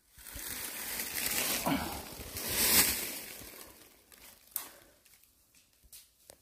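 Rustling and crunching of dry leaves and brush underfoot on a steep slope, a sustained scrape that swells for about four seconds and fades, followed by a few short snaps.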